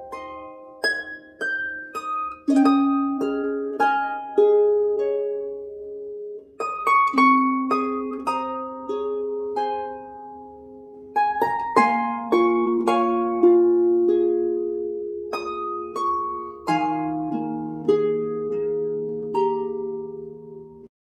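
Background music: a gentle plucked-string melody of single notes and chords, each note struck and left to ring and fade.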